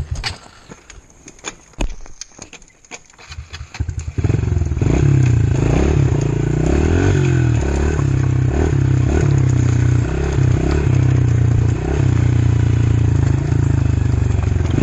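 A few seconds of scattered knocks and rattles, then about four seconds in a dirt bike engine comes in abruptly and runs loudly, its revs rising and falling as the bike rides along a rough trail.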